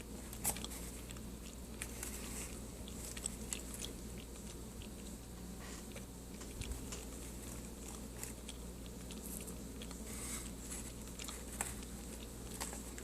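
A person biting and chewing chunks of cornstarch, with soft, irregular crunching crackles, over a faint steady low hum.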